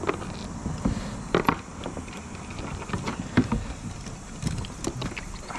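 Scattered, irregular knocks and clicks of hands and gear moving about in a kayak, over a steady background hiss.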